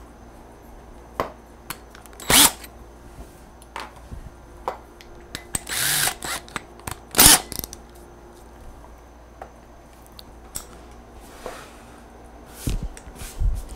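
A cordless drill being handled while a hole saw is fitted into its chuck: scattered clicks and a few brief bursts from the drill, the strongest about two, six and seven seconds in. A couple of low thumps come near the end.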